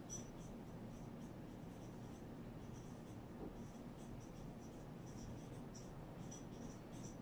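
Whiteboard marker writing on a whiteboard: faint, short squeaky strokes in an irregular run as a word is written out.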